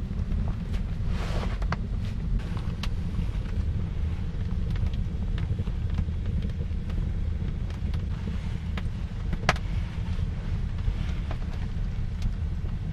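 Wind buffeting the microphone as a steady low rumble, with scattered light knocks and clicks.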